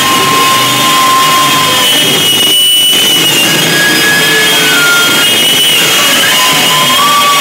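Harsh noise music played live through a floor-spread chain of effects pedals: a loud, dense wall of noise with several high feedback whines that hold and slide in pitch, thinning briefly about two and a half seconds in.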